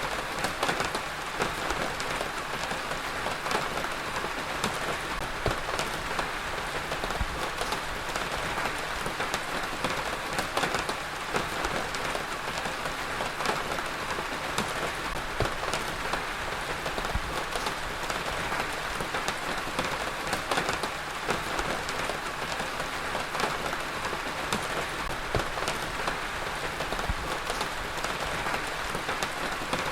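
Heavy rain falling steadily, a dense hiss of rain with many individual drops tapping distinctly on a surface.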